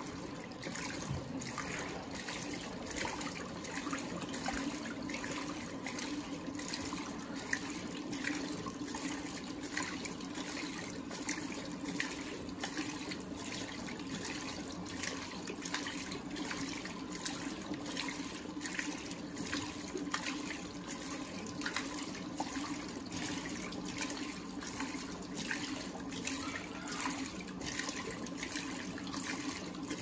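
Electrolux Turbo AquaJet LTA15 washing machine running its AquaJet water jets during the rinse, spraying recirculated water onto the laundry: continuous splashing and pouring water over a steady low hum, with frequent small splashes. The hum and water stop at the very end.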